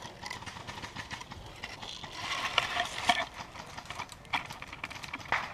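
Light rustling broken by scattered sharp clicks and snaps, the loudest cluster about halfway through and a few single loud snaps near the end.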